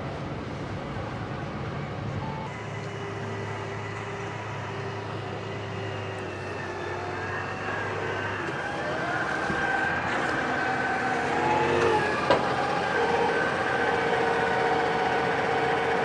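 New Holland tractor engine running steadily; its note shifts and it grows louder in the second half. There is a single sharp knock about twelve seconds in.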